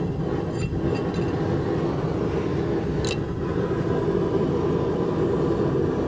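Blacksmith's forge running with a steady rumbling roar. A few light clicks come near the start, and a brief hiss about three seconds in.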